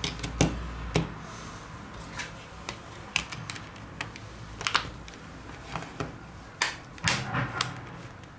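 Plastic clicks and snaps of a Samsung Galaxy Note 2's battery being seated and its back cover pressed into place around the edges: a scattered run of sharp clicks at uneven intervals, a few louder snaps among them.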